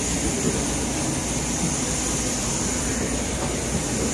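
Steady noise of a jet airliner running on the apron: a constant low rumble under an unchanging high whine.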